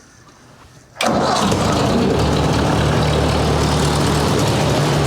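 1958 Ford 851 tractor engine starting up about a second in, then running steadily at idle. This is its first run after the hydraulic pump rebuild.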